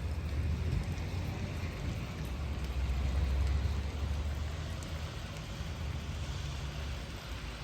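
Rain falling steadily, with a low rumble that swells about halfway through and then eases.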